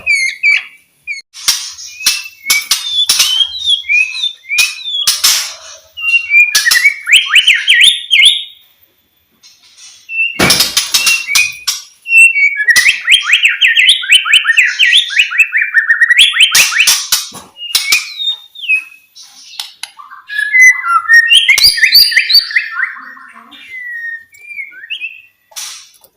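White-rumped shama (murai batu) singing: quick, varied whistled phrases and fast trills mixed with sharp clicking notes, in bursts with short pauses about 9 and 19 seconds in.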